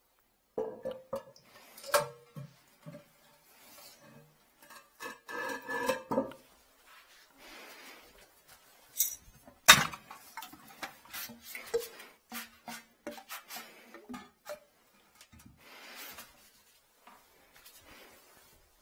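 A porcelain toilet being taken off its floor flange: irregular clinks, knocks and scraping of ceramic against tile, with a busy stretch of scraping about five seconds in and one sharp, loud knock about halfway through.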